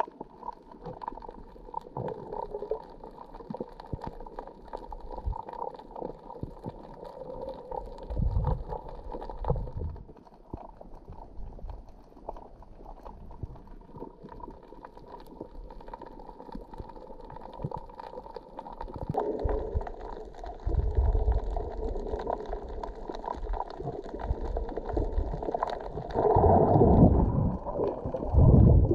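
Muffled underwater sound from a camera below the surface: low gurgling and rumbling of water with scattered small clicks. The rumbling swells about eight seconds in, again about twenty seconds in, and is loudest near the end.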